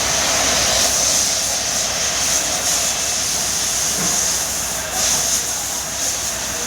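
Maruti Dzire 1.3-litre four-cylinder diesel engine running with a misfire, a sign of the fault logged as P0201, an open circuit on the No. 1 injector.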